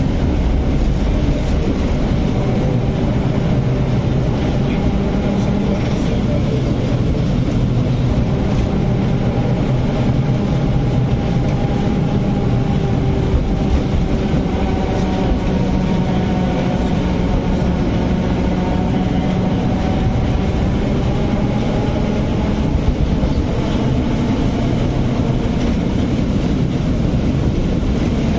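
A 1914 electric tram running along street track, heard from the driver's cab. There is a steady low rumble of wheels on rail, and a whine that slowly rises and falls in pitch as the tram speeds up and slows.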